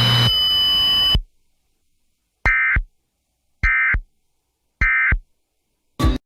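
Emergency Alert System end-of-message data bursts: three short, identical buzzy digital bursts about a second apart, closing a severe thunderstorm warning. A steady high tone with hum cuts off about a second in, before the bursts.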